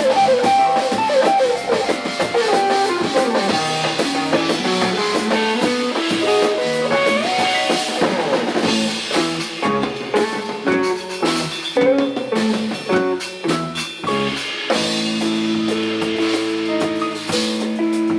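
Rock band music: a guitar plays a bending melodic line over drum kit and bass, and about fifteen seconds in the band settles into held chords.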